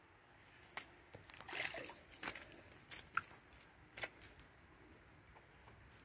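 Faint sloshing and trickling of shallow river water, with a few small splashes over the first four seconds, then quieter.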